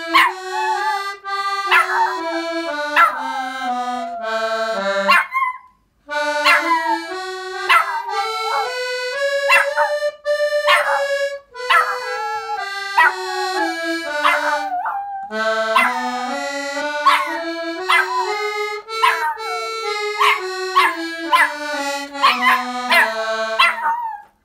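Small piano accordion playing a scale up and back down, three times over, with short pauses between runs. A small dog yips and barks along over the notes.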